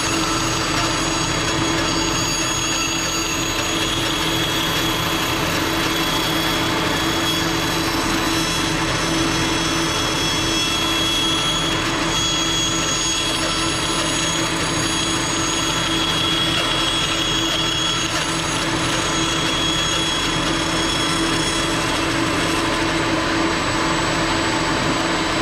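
A vacuum cleaner and a power saw running steadily together as a round blank is cut out of wood on a circle-cutting jig.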